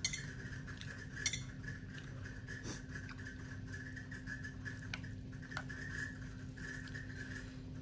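An eating utensil clinking against a bowl a few times, the sharpest clink about a second in, over a steady faint hum.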